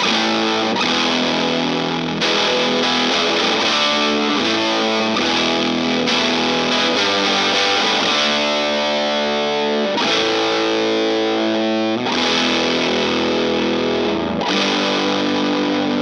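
Electric guitar, a Gibson ES-335, played through an Acorn Circuit Fuzz pedal with a distorted, fuzzy tone, strumming ringing chords that change every second or two.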